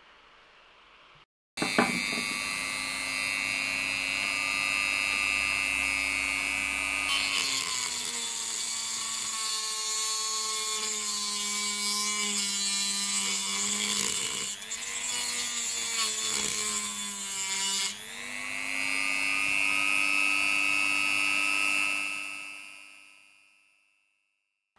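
HILDA JD3321C rotary tool starts and runs with a steady high whine. For a long stretch in the middle its pitch drops and wavers with a gritty grinding as the cutting disc bites into a wet stone. It then speeds back up running free and dies away near the end.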